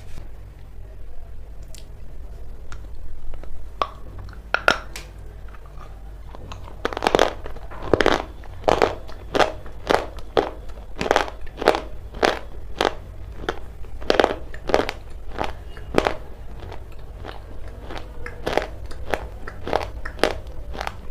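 Close-miked chewing of crunchy food: a few sparse crunches at first, then steady loud crunching at about two chews a second from about a third of the way in.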